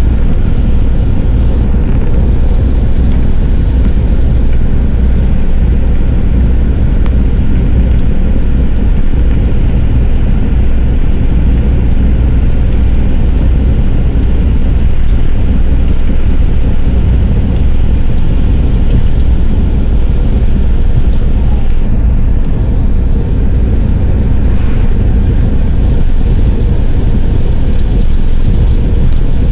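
Steady low rumble of a vehicle driving at highway speed, tyre and engine noise heard from inside the cabin.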